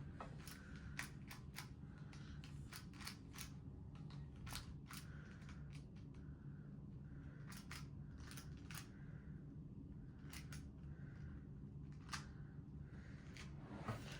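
Irregular light plastic clicks and clacks of a 2x2 Rubik's cube's pieces being handled, turned and fitted back together, with soft rubbing between the clicks.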